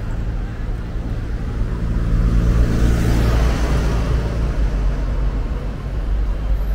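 City street traffic: a motor vehicle's engine hums low and steady, and a vehicle passes close by, loudest about three seconds in.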